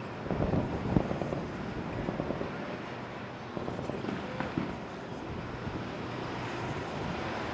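Open-air ambience on a carrier's flight deck: a steady noisy rush with wind on the microphone, broken by irregular crackling pops in the first second or so and again about halfway through.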